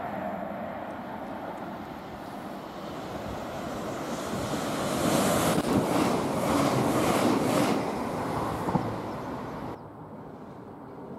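Electric passenger train running along the platform close by, a rushing noise with a rhythmic beat from its wheels that swells to its loudest in the middle, then cuts off suddenly near the end.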